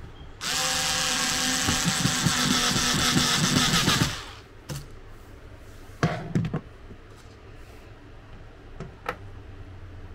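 Power drill running for about three and a half seconds, driving a screw into the bar cart's panels, followed by a few light knocks.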